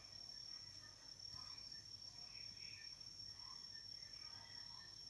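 Near silence: a faint sizzle of jerk-marinated pork chops searing in hot oil in a frying pan, with a steady high-pitched whine.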